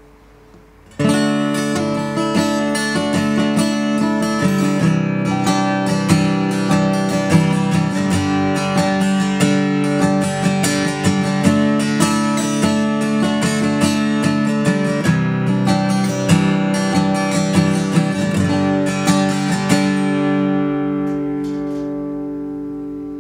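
Acoustic guitar strummed with a Starpic pick through a D, C, G chord progression, starting about a second in. Near the end the last chord is left to ring and fades away.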